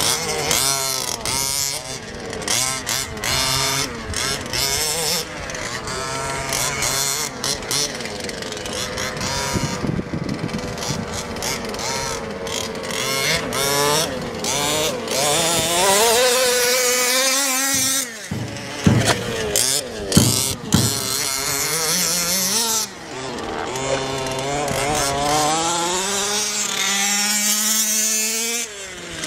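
Small two-stroke petrol engines of 1/5-scale HPI Baja RC buggies racing, revving up and down through the corners. About two-thirds of the way through there are several sharp knocks.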